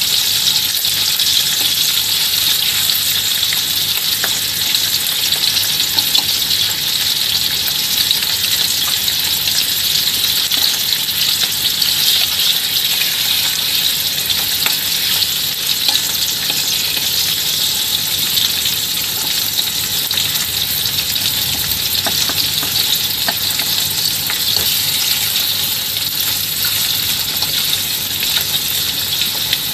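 Small sea fish frying in hot oil in an aluminium wok: a steady, even sizzle.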